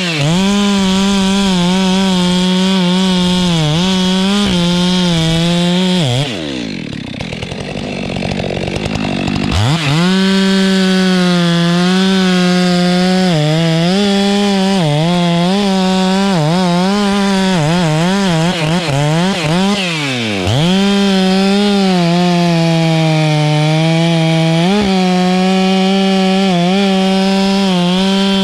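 Stihl MS 462 two-stroke chainsaw at full throttle, cutting wood on an albizia tree, its pitch wavering and sagging under load. About six seconds in it falls back to idle, revs back up near ten seconds, and drops off briefly once more around twenty seconds before going back to full throttle.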